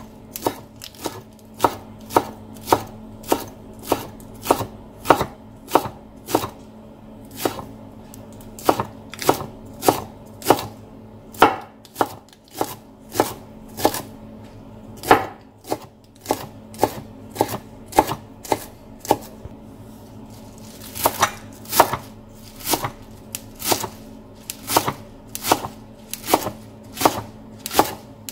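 Chef's knife chopping soft herb leaves on a wooden cutting board, first húng chanh (Indian borage), then garlic chives: a steady run of sharp knocks about two a second, with a short pause about two-thirds of the way through. A faint steady hum runs underneath.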